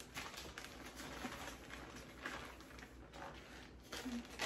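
Soft, irregular rustling and crinkling of a plastic bag of powdered sugar being handled and tipped over a mesh sieve.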